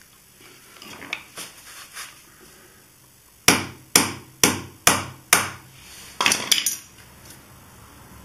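A hammer tapping on flat pliers that grip a stuck oil filler cap on a motorcycle's clutch cover, knocking it loose in the unscrewing direction. About halfway in come five sharp metal taps, roughly two a second, then a quick flurry of lighter knocks.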